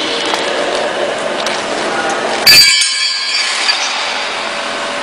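A single sharp clink of a hard part being knocked, about two and a half seconds in, ringing briefly afterwards, over a steady background hiss.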